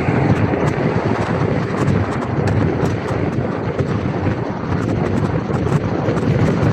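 Wind rushing over the microphone of a bicycle rider riding fast, a steady deep rumble, with faint small ticks scattered through it.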